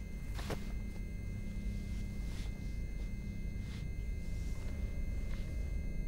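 Low steady drone with a faint high steady tone, over which come four soft brushing sounds of a hand moving across a quilted bedspread, the first and loudest about half a second in.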